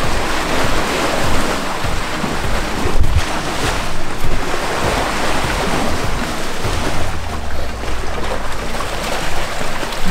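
Lake water washing against a rocky shore, with wind rumbling on the microphone.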